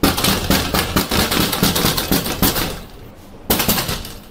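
Loud, rapid rattling knocks, many to the second, for about three seconds, then a shorter burst of the same about half a second later.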